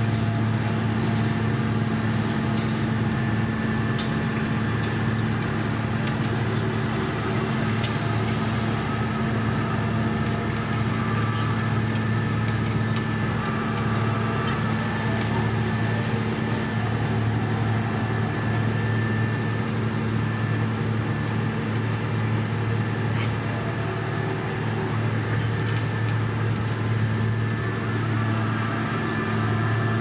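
Heavy diesel engines of a paving machine and a dump truck running steadily, a deep even drone with a constant hum, while the truck tips base course aggregate into the paver. Scattered light clicks and knocks sound over it.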